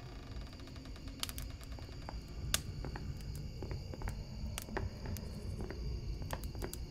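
Faint low rumble with scattered, irregular small clicks and ticks.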